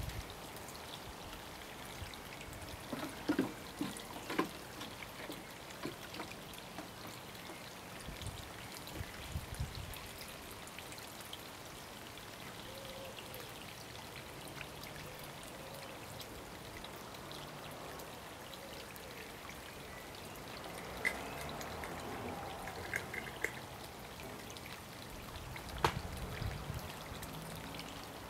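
Garden-pond ambience: soft, steady trickling water, with a few brief low buffets of wind on the microphone and some light clicks.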